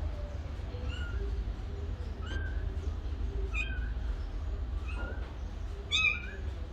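Kitten meowing: a series of about five short, high-pitched mews, one every second or so, the loudest near the end, over a steady low hum.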